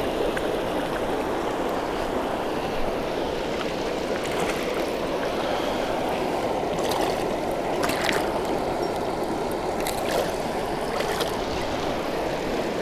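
Steady rush of water pouring over a river spillway, with a few short sharp sounds about seven to eleven seconds in.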